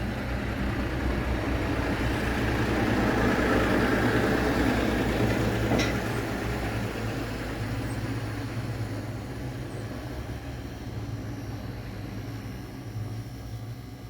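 Portable electric espresso machine's pump running: a steady low hum with a rushing noise that swells for a few seconds and then fades, with a single click about six seconds in.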